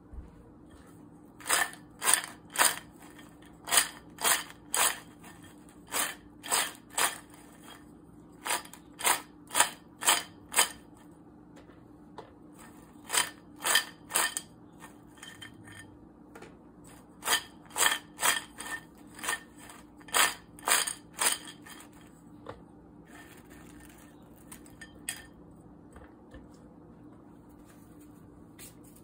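Crispy fried idly fries giving short, sharp crunchy clatters, about two a second, in three runs with pauses between.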